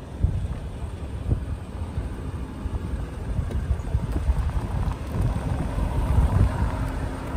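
Gusty wind rumbling on the microphone over the hum of street traffic.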